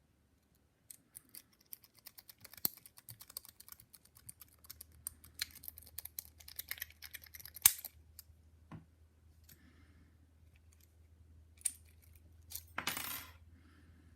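Lock-pick rake scrubbing the pin stack of a padlock: rapid, irregular metallic clicking and rattling for several seconds, with one louder click near the middle, then a few sparse clicks and a short scrape near the end.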